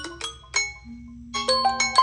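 Smartphone ringtone or alarm tone: a fast melody of short, ringing struck notes over a held low note. The notes pause briefly about a second in, then start again.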